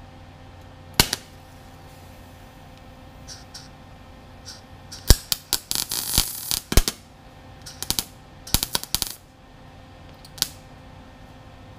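MIG welder tack-welding a thin steel patch panel into a rusted windshield channel: short bursts of arc crackle, one about a second in, a cluster in the middle and more near the end, over a steady low hum.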